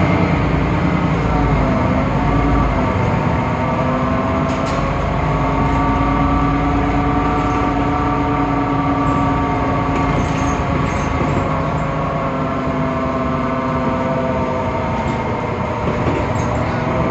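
Temsa Avenue LF city bus running, its DAF PR 228 diesel and ZF Ecolife automatic gearbox giving a steady whine of several tones that dips and recovers in pitch about two to three seconds in and shifts again near the end. The sound is unusual for this bus type: strange and different from normal.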